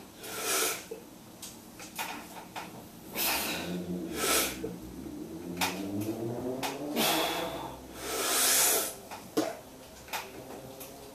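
A bench-press lifter breathing hard in forceful, hissing breaths, with a drawn-out strained groan from about three seconds in while he works the barbell; the loudest breath comes about eight seconds in. Scattered light clicks and knocks sound between the breaths.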